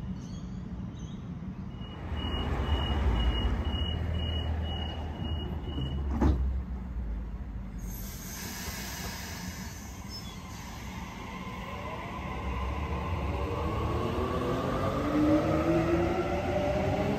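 Sydney Trains electric suburban train departing: its door-closing chime beeps about eight times, the doors shut with a knock, a hiss follows, then the traction motors whine, rising steadily in pitch as the train pulls away.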